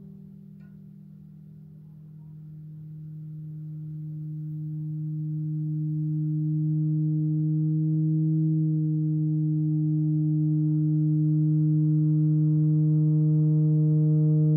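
Halldorophone feedback drone: the D-string and a sympathetic string are sustained by electronic feedback and interfere, giving a beating pattern as their pitches are bent against each other. It is a steady low tone with a ladder of overtones that swells from quiet to loud over the first several seconds, then holds.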